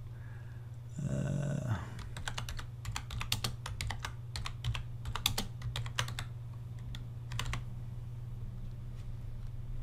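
Typing on a computer keyboard: a quick, irregular run of key clicks that stops about two seconds before the end.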